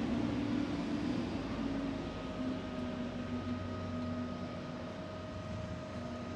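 Construction machinery running steadily: an engine hum with a few constant tones over a wash of city noise.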